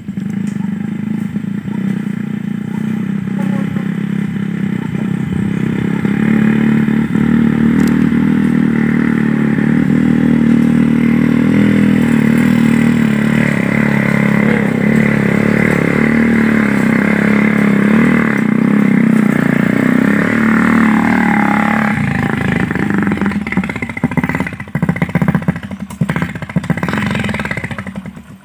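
Honda motorcycle converted for hauling oil palm fruit, its engine pulling steadily up a muddy incline under a full load of fruit bunches and growing louder as it approaches. About three-quarters of the way through the revs fall away, and the engine runs unevenly as the bike comes to a stop near the end.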